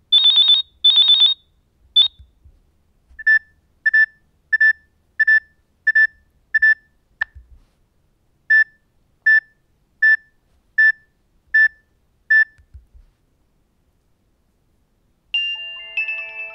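Nokia 6600 built-in alert tones played one after another. First come two buzzy high-pitched beep bursts, then short plain beeps repeating about one and a half times a second in two runs of six, with a single click between the runs. Near the end a chiming melodic ringtone begins.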